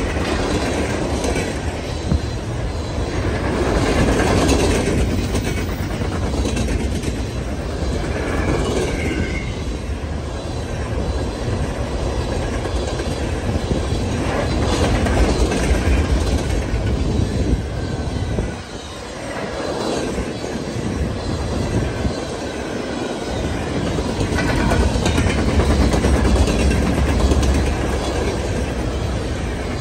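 Freight train of open-top hopper cars rolling past close by: a steady rumble and clatter of steel wheels on the rails, dipping briefly about two-thirds of the way through.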